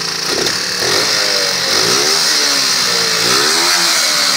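Sundown Max 125cc single-cylinder four-stroke motorcycle engine being revved by hand at the throttle, its pitch rising and falling three times above idle.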